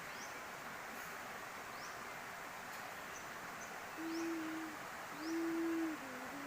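Steady rush of a waterfall, with a bird giving two low, even-pitched hoots about four and five seconds in, and faint short rising chirps repeating every second or so.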